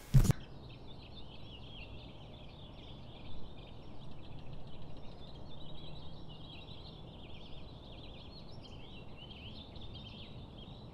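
A knock as a hand bumps the camera, then many small birds twittering and chirping continuously over a faint low hum.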